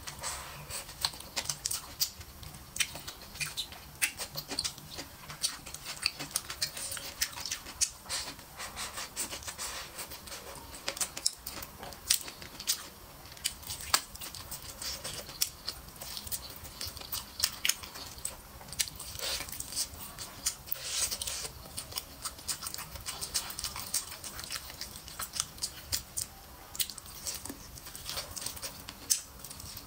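Close-miked mouth sounds of a person eating braised duck leg: a steady run of wet chewing, lip smacks and quick sucking clicks as the meat is bitten and gnawed off the bone.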